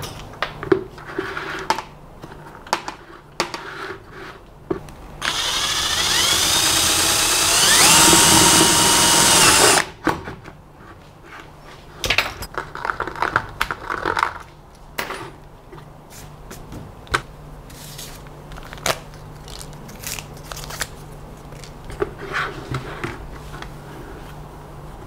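Power drill running for about four and a half seconds, its motor pitch rising as it speeds up and then holding steady, as it drills a hole in a plastic bucket. Before and after come scattered knocks and scrapes of the plastic bucket being handled.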